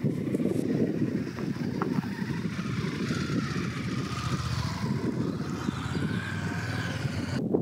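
Wind buffeting the microphone: a low, uneven rumble, with a faint wavering whistle in the middle.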